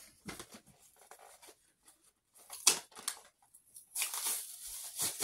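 Crinkling and tearing of a card-backed plastic toy package being worked open by hand, in scattered short crackles, with a sharp crack about two and a half seconds in and a longer rustle near the end.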